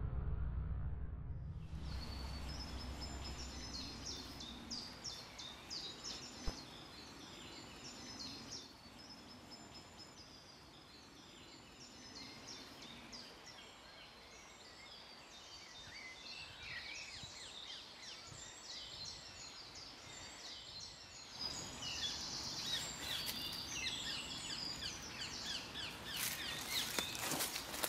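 Woodland ambience with many small birds chirping and singing. About three-quarters of the way through, rustling and crackling footsteps on dry leaf litter join in and grow denser near the end. In the first second or two, a low rumble of music fades out.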